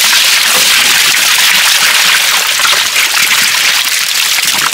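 Water gushing and splashing as a plastic tub of seawater with live fish is tipped out onto a boat deck.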